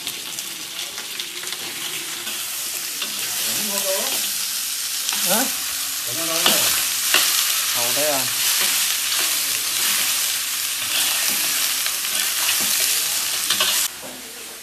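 Cubed meat frying and sizzling in a large wok, stirred with a metal spatula. The sizzle cuts off suddenly near the end.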